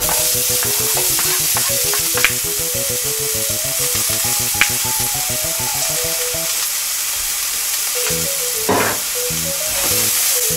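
Diced onion sizzling in hot oil in a frying pan, a steady hiss throughout, with a couple of light clicks and a spatula stirring the onion near the end. Background music plays along.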